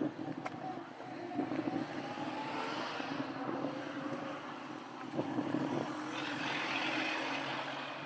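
A car driving past on the street, its engine and tyre noise building to a peak about six to seven seconds in as it passes, then fading.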